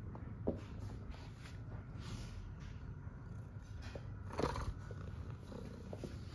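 Tuxedo cat purring steadily close to the microphone, with two short knocks, the louder about four and a half seconds in.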